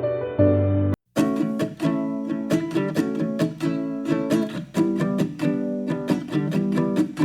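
Background music: one piece cuts off about a second in, and after a brief silence a light plucked-string piece starts, with quick, evenly paced picked notes.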